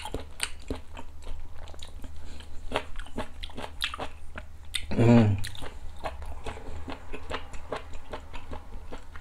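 Close-miked chewing and mouth sounds of a man eating sundae (Korean blood sausage) hot pot, with many small wet clicks. A short vocal sound is heard about five seconds in.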